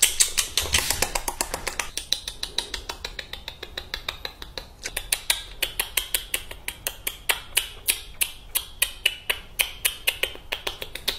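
Close-miked chewing of crunchy food in mukbang ASMR style: rapid, regular crunches, several a second, loudest at the start.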